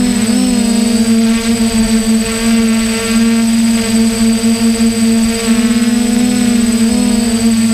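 DJI hexacopter's rotors droning in flight, heard from the drone's own onboard camera: a loud, steady pitched hum that wavers briefly just after the start and again about 7 seconds in as the motors change speed.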